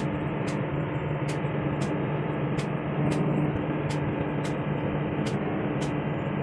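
Heavy diesel engine of an excavator running steadily, a constant drone, with a faint high tick about every two-thirds of a second.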